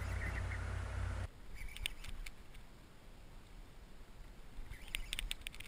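Faint fishing reel clicking in two short bursts, about a second and a half in and again near the end, while a hooked fish bends the rod.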